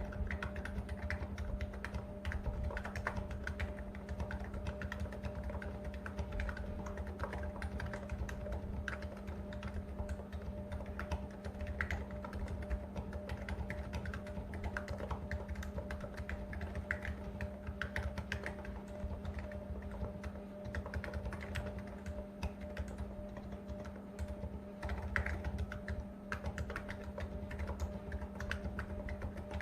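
Niz Plum 68 electrostatic capacitive keyboard with stock keycaps being typed on continuously, a steady stream of keystrokes over a faint steady hum. Through the phone's microphone the keystrokes sound a bit clacky.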